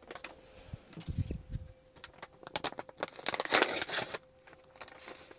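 Sauce-mix packets crinkling and rustling as they are opened and shaken out into a pot, with a few light knocks and short crackly rustles.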